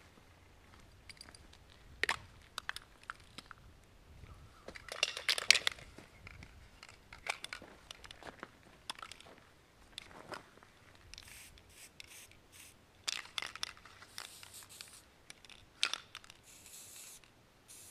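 Aerosol spray paint can giving several short hisses in the second half, among crunching steps on dry leaves and gravel and small clicks and knocks of handled cans.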